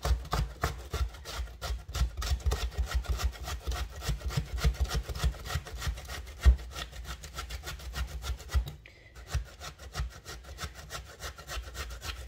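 Zucchini being grated on a hand grater: quick, rhythmic rasping strokes, about four a second, with a short pause about nine seconds in.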